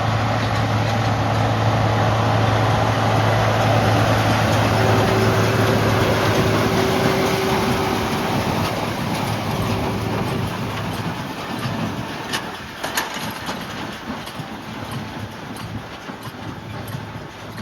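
Tractor engine running steadily as it pulls a hay baler, loud at first and then fading as it moves away, with a few sharp knocks about two-thirds of the way through.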